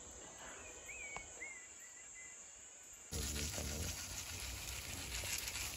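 Faint chirping of night insects; about three seconds in, a louder, steady crackling hiss takes over from steaks on a hot charcoal grill being sprinkled with salt.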